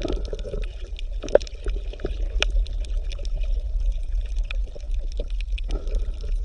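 Underwater ambience: a steady low rumble of moving water with many scattered small clicks.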